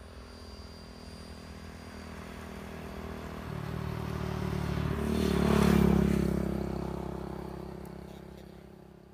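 A motorbike engine passing close by, growing louder to a peak about six seconds in and then fading away.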